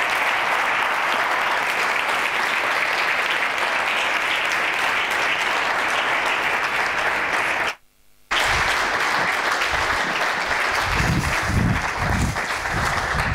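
Audience applauding steadily. The applause cuts out abruptly for about half a second past the middle, then carries on, with some low thumps beneath it near the end.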